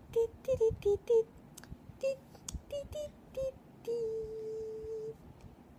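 A soft voice humming a little tune in short notes that step up and down, then holding one long steady note, with small clicks in between.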